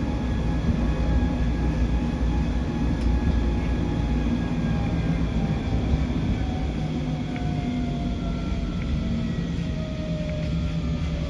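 Stuttgart rack railway car running downhill on its rack track: a steady low rumble, with a thin whine that slowly falls in pitch through the second half.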